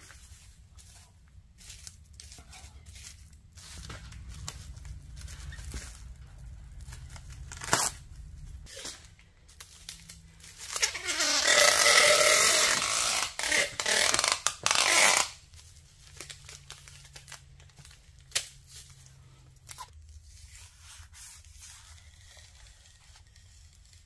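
Plastic film pulled off a roll, with a loud tearing screech lasting about five seconds near the middle, and quieter crinkling of plastic wrap being pressed down before and after. A couple of sharp clicks.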